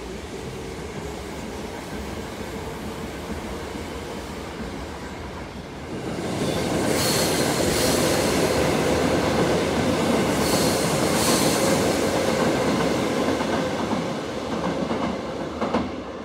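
Electric commuter train passing directly below, its wheels clacking in pairs over the rail joints, then fading as it pulls away. Before it arrives, a quieter, steady train noise.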